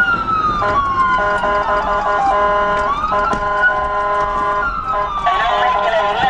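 Police car siren wailing, its pitch rising and falling slowly over a few seconds, with steady tones alongside; a faster wavering tone joins about five seconds in.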